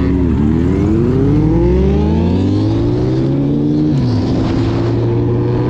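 Superbike engine accelerating, its pitch rising steadily for about four seconds, then dropping sharply and running steady.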